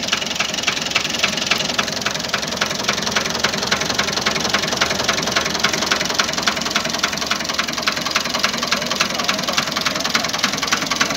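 Ford 4600 tractor's three-cylinder diesel engine idling steadily, with an even, regular diesel knock.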